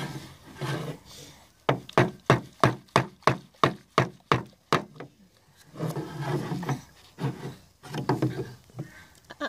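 A baby knocking a plastic sippy cup against a wooden table: about a dozen sharp knocks at roughly four a second, starting a couple of seconds in and stopping about halfway. Before and after them the baby babbles and grunts.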